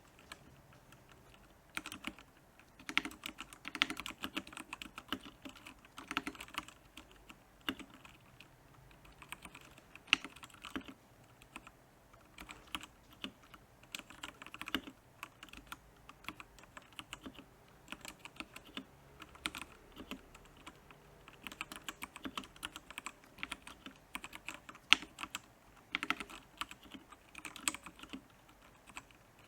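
Royal Kludge R87 mechanical keyboard being typed on: quick runs of key clicks and clacks in bursts with short pauses, starting about two seconds in.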